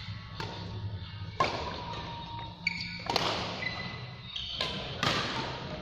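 Badminton rally: sharp cracks of rackets striking the shuttlecock, several in a row roughly a second apart, each ringing on in the echo of a large sports hall, with thuds of players' footsteps on the court.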